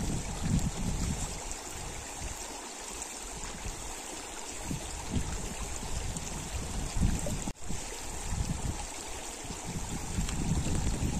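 Shallow mountain stream running over stones, with an even rushing hiss and irregular low rumbles.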